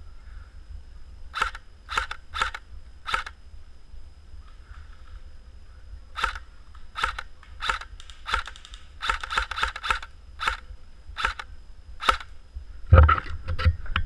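Airsoft guns firing single shots: sharp clicking pops at irregular intervals, with a quick run of shots about nine seconds in. Near the end, loud low rumbling and thumps, like wind or handling on the camera.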